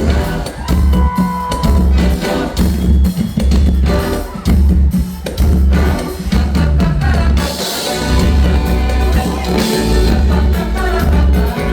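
Live pagode band music played loud over a PA, carried by a heavy drum and bass beat.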